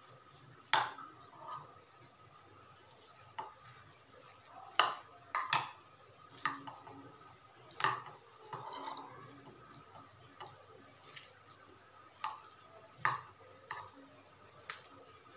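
Metal spoon mixing rice and vegetables in a glass bowl, clinking sharply against the glass a dozen or so times at irregular moments, with quieter stirring noise in between.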